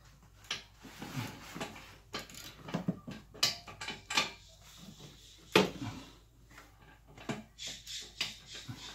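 Irregular metallic clinks and knocks of hand tools against parts deep in a car's engine bay, with one louder knock a little past halfway.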